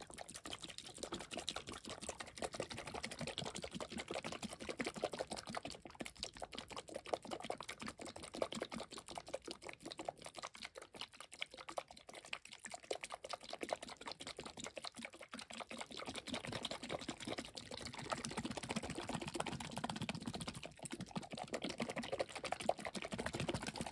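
Small water-filled plastic toy toilet shaken hard by hand: a continuous fast clattering rattle of plastic, with water sloshing and the hidden figure knocking around inside.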